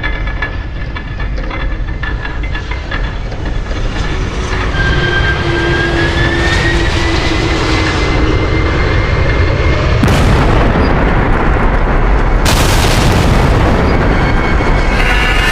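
Edited sound-effects mix of loud rumbling noise, with a whine that rises in pitch about five seconds in, and sudden cuts to a harsher, louder roar about ten seconds in and again about twelve and a half seconds in.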